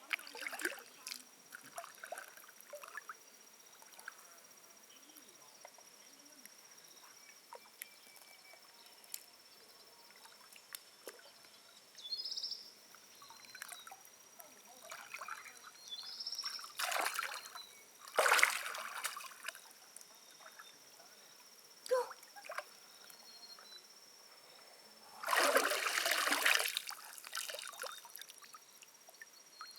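Water splashing and trickling in a few short bursts, the longest about two seconds, over a quiet background with a thin steady high tone.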